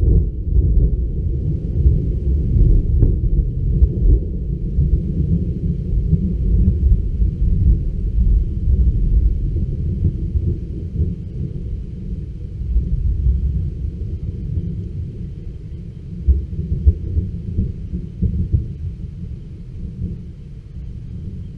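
Thunder rolling in a long, deep rumble, loudest in the first half, swelling once more later and easing off near the end.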